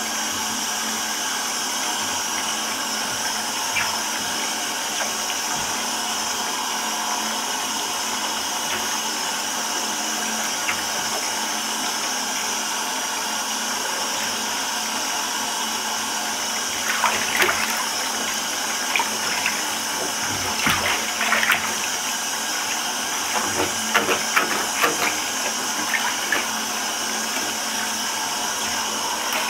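Water running steadily into a bathtub full of muddy water. From about halfway through come bursts of splashing as shod feet move in the water.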